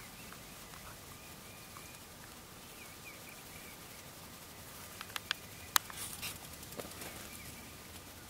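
Faint bird calls over a quiet outdoor hiss. About five seconds in come a few sharp clicks, followed by a short rustle.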